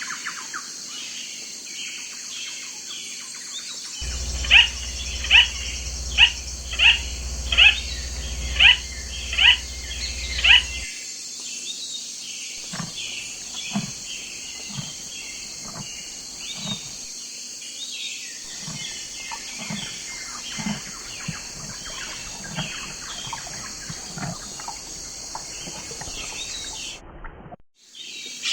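Birds calling: a run of about nine loud, sharp calls, each falling in pitch and coming roughly one a second, over a steady high-pitched chorus, followed by fainter repeated calls.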